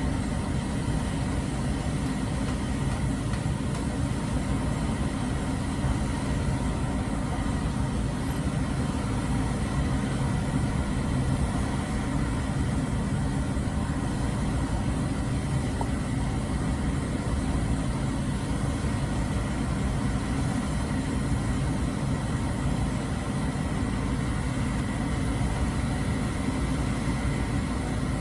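A boom truck's engine running steadily at a constant speed, driving its crane.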